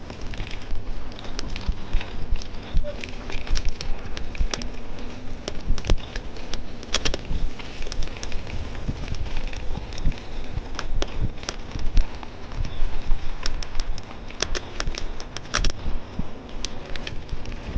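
Mountain bike rolling over loose, rock-strewn ground, the frame and tyres rattling with many irregular sharp clicks and cracks from stones over a low rumble of wind on the microphone.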